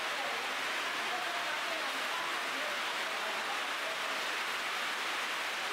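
Steady hiss of heavy rain falling on foliage and stone.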